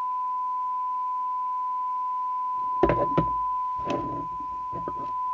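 A steady 1 kHz test tone coming out of a Maxcom 20E CB radio's receiver, the demodulated audio of the signal generator's S9 test signal during receive alignment. A few sharp clicks and knocks from handling the set come about three seconds in, with smaller clicks and scrapes over the next two seconds.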